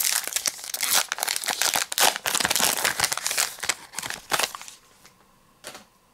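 Plastic wrapper of a baseball card pack crinkling as it is torn open and peeled off the cards. The crinkling stops about three-quarters of the way through, and a short rustle follows near the end.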